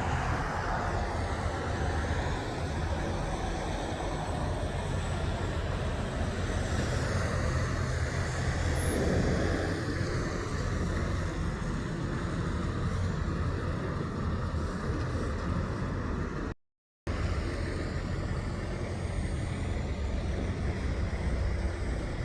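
Steady road traffic noise with the low rumble of truck and car engines, and no horn sounding. The sound cuts out completely for about half a second roughly three-quarters of the way through.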